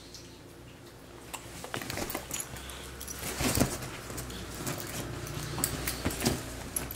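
Pet capuchin monkeys moving about on a person, making small animal sounds amid scattered rustles and clicks.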